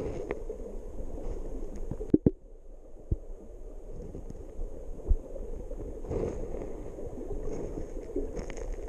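Hands digging and stirring gravel and sand in a streambed, heard from under the water: a muffled, steady rumble of moving water and shifting stones, with sharp knocks of stone on stone a little after two seconds in (a quick double) and again near three and five seconds.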